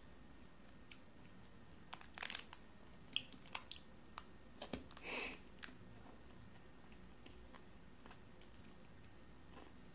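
Foil wrapper crinkling and a crisp bite into a foil-wrapped chocolate bar, heard as a scattering of short clicks and crunches in the first half, then little more.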